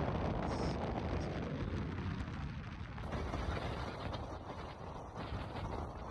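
Wind buffeting the microphone: a continuous low rumbling rush that changes in character about three seconds in.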